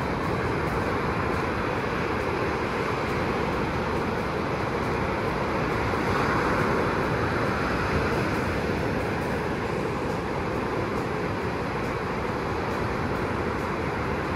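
Fairly big ocean waves breaking and washing up the beach in a steady rush of surf, swelling a little about six seconds in.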